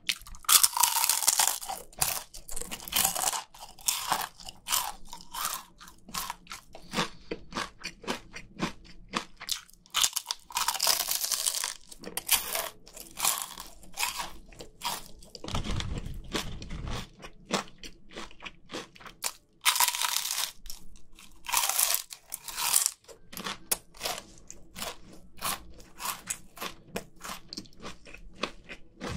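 Close-miked biting and crunching of crispy KFC fried chicken skin, with loud crisp bites every few seconds and steady crunchy chewing between them. A brief low rumble about halfway through.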